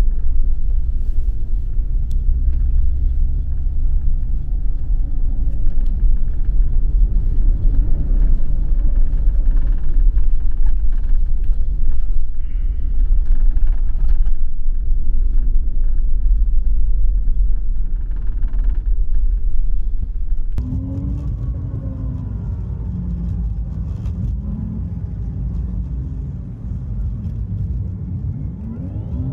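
Double-decker highway bus driving in city traffic, heard from inside the upper deck: a loud, steady low engine and road rumble. About two-thirds of the way in, it cuts abruptly to a sped-up stretch, where the rumble thins and quick rising and falling whines come through.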